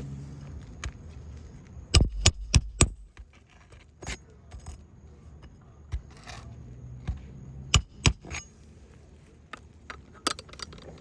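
Hammer blows driving roofing nails during an asphalt shingle repair: four quick strikes about two seconds in, two more about eight seconds in, and one near the end, with light scraping and clinking between.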